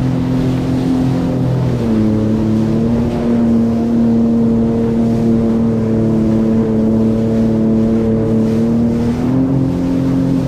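Sea-Doo Fish Pro Trophy jet ski's three-cylinder engine running at steady cruising speed over choppy water, with water rush under the hull. The engine note drops a little about two seconds in and rises slightly near the end.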